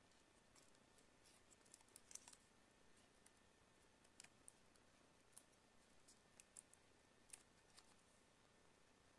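Faint, scattered clicks and light taps of small parts from a disassembled tablet being handled, a little cluster about two seconds in; otherwise near silence.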